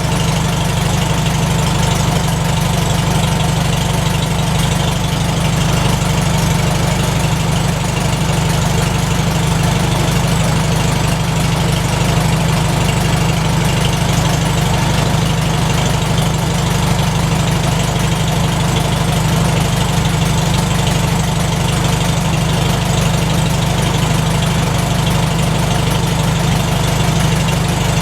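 McCormick-Deering W-4 tractor's four-cylinder engine idling steadily with an even firing pulse, freshly started on a cold spring start.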